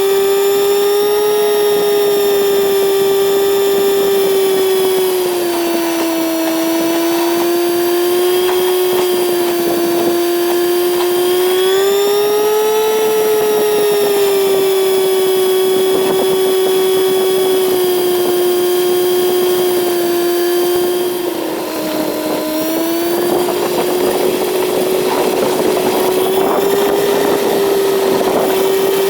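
Kawasaki Z900 inline-four engine running steadily at cruising revs, its pitch rising and falling gently with the throttle, with a brief dip a little over two-thirds of the way through.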